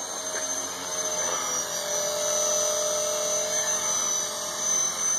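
Blade 450X electric RC helicopter flying low: a steady high-pitched whine from its brushless motor and spinning rotors, growing louder over the first two seconds and then holding.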